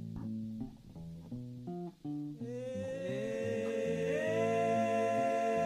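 Instrumental music: short plucked notes, guitar-like, in the first half, then long held tones slide in about two and a half seconds in and swell, growing louder.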